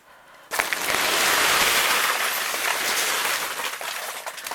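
Snow sliding off a greenhouse's plastic roof: a sudden rushing hiss that starts about half a second in and runs on, easing slightly near the end.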